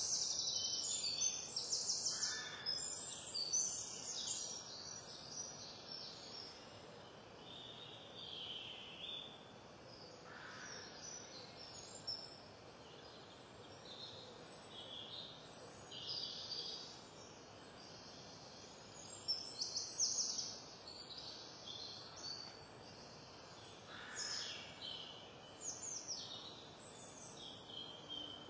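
Birds chirping and calling in short bursts, over the crisp crunch of a knife cutting cabbage and water spinach on a wooden board.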